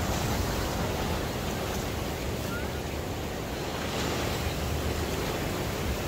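Steady rushing noise with a low rumble underneath, even throughout with no distinct events.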